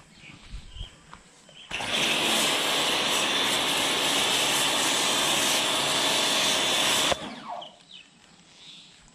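Bosch Aquatak 125 electric pressure washer running with its trigger held, spraying snow foam through a foam cannon lance: a loud, steady hiss over a motor hum, starting suddenly about two seconds in and cutting off suddenly some five seconds later.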